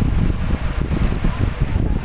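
Wind buffeting the microphone in steady low gusts, over the wash of small waves breaking across a flat rocky shore shelf.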